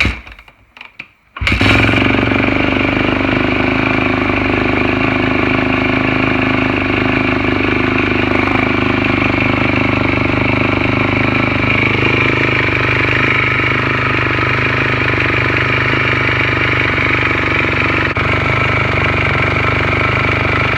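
Four-stroke dirt bike engine starting about a second and a half in, then idling steadily. It is loud, with a top-end noise that the riders take for a slapping timing chain from a failing cam chain tensioner.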